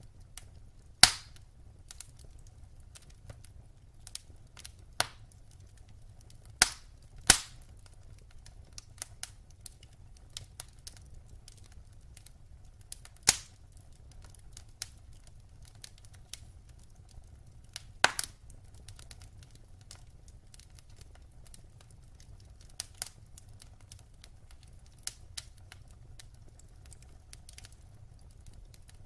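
Wood fire burning in a fireplace: a steady low rumble of the flames with constant small crackles and a handful of loud, sharp pops from the burning logs, the biggest about a second in, twice around seven seconds, near the middle and about two thirds of the way through.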